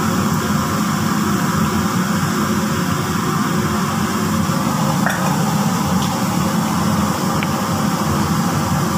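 Steady hiss with a constant low hum from a stovetop pot of chicken cooking in tomato sauce, with water just added and the liquid bubbling.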